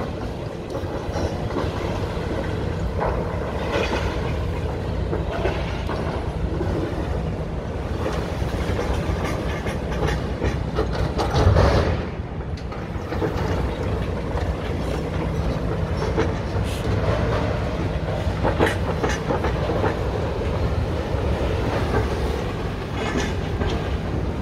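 Demolition excavators, a high-reach machine and Hitachi excavators, tearing down a concrete office block: diesel engines running steadily under irregular crunching and clanking of concrete and metal being broken. One louder crash comes about halfway through.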